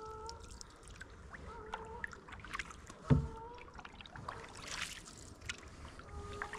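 Canoe being paddled on calm water: paddle strokes with water dripping and light knocks against the hull, a brief squeak that recurs a few times, and one loud thump about three seconds in.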